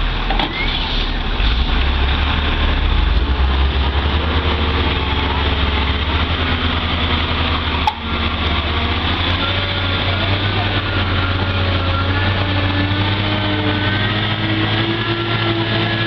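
Heavy diesel truck engine working hard under load, its low drone steady at first and then its pitch climbing slowly through the second half as it revs up. A brief click and dip comes about halfway through.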